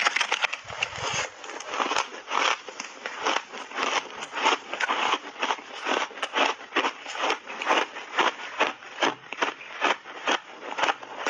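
Close-up crunching of shaved ice being chewed in big bites, a steady run of crisp crunches about two a second.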